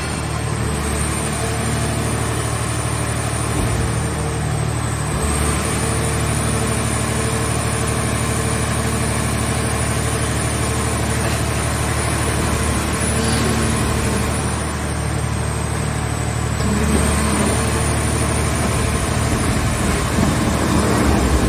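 The power unit of a hydraulic car-shell baler running steadily, with a thin high whine that dips in pitch twice. It gets a little louder in the low end near the end.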